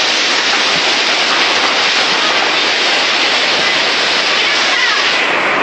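Hurricane-force wind and driving rain blowing steadily and loudly through trees and palms.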